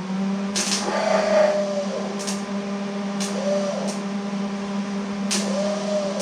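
Starter motor of a Ford flathead V8 running with a steady hum but not turning the engine over, the starter drive not engaging the flywheel. A few sharp clicks come about every second and a half.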